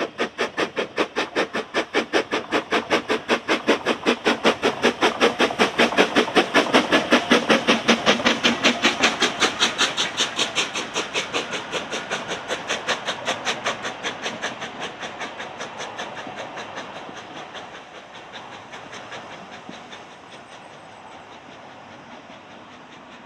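Three-foot-gauge steam tank locomotive working a train past, its exhaust beating evenly at about four beats a second. The beats are loudest as it passes, then fade away while the coaches roll by.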